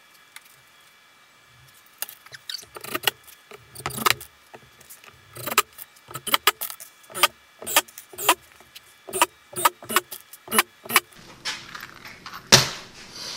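Quick, irregular clicking and clinking of small hard objects worked in the hands, several clicks a second, followed by a single louder knock near the end.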